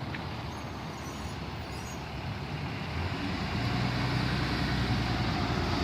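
A road vehicle's engine and tyre noise, a steady rumble that grows louder through the second half as the vehicle draws nearer.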